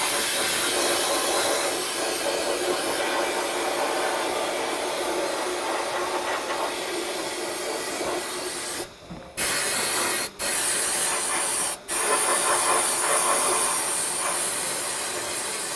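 Sandblasting gun in an abrasive blast cabinet hissing steadily at high air pressure as it strips paint and rust from a heater-core cover plate. The blast cuts off briefly three times between about nine and twelve seconds in.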